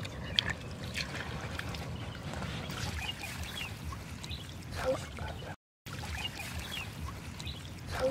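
Water sloshing and trickling, with scattered small splashes and a couple of short voice-like calls; the sound cuts out for a moment just past halfway.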